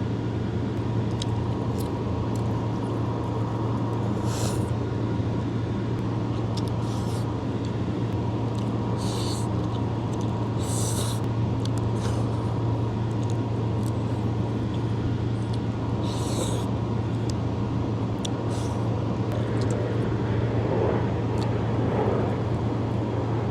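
Steady low background hum with a faint steady tone, under a few short, crisp eating sounds while a meal is being eaten.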